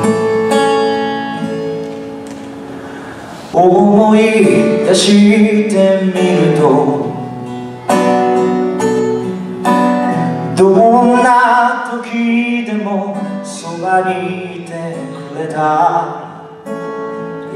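A man singing with his own strummed acoustic guitar. A guitar chord rings and fades for the first few seconds, then the voice comes in at about three and a half seconds and carries on in sung phrases over the guitar.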